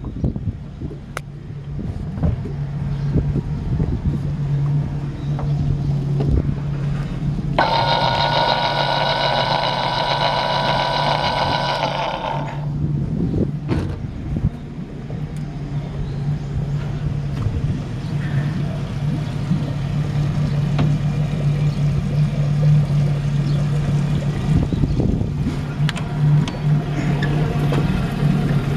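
Yamaha 60 hp four-stroke engine idling steadily and evenly, running well. About a third of the way in, a high steady buzzing tone sounds for about five seconds.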